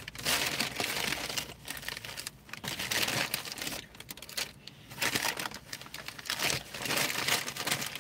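Brown paper takeaway bag crinkling and rustling as hands rummage inside it, in irregular bursts with brief pauses.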